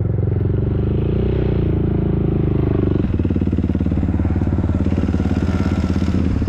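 Off-road motorcycle and quad engines running at low revs close by, a steady rapid pulsing, with the engine note changing abruptly about three seconds in.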